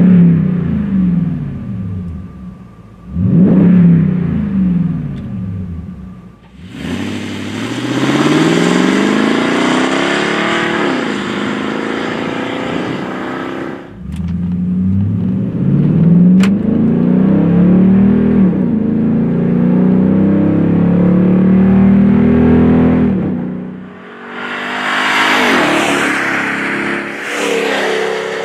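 Toyota Tundra V8 running through a Flowmaster FlowFX cat-back exhaust with straight-through mufflers. It revs twice briefly, then accelerates in several separate takes with the pitch climbing, each cut off abruptly into the next.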